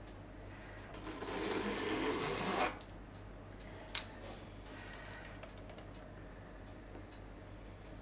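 A rasping scrape lasting about a second and a half, then a single sharp click about four seconds in, with a few faint light ticks after it.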